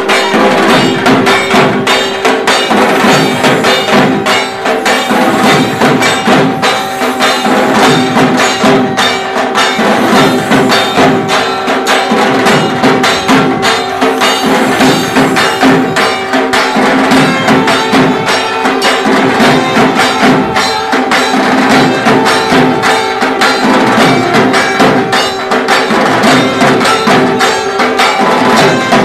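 Loud traditional folk music driven by dense, fast percussion, with a steady held note running underneath.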